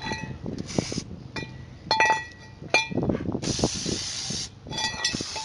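Aerosol brake cleaner spraying onto a rear drum brake to wash off brake dust: a short hiss, then a longer hiss of about a second and another near the end. Between the sprays come several sharp, ringing metallic clinks.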